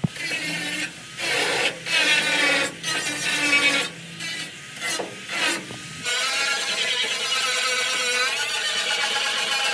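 A workshop tool rubbing or filing in strokes of about a second with short pauses, then running continuously from about six seconds in, its pitch wavering.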